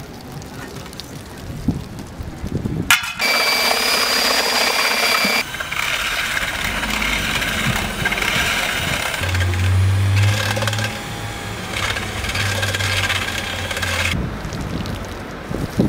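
Long-handled paint roller working thick wet anti-slip coloured paint over asphalt, a steady sticky crackling hiss, after a sharp click about three seconds in.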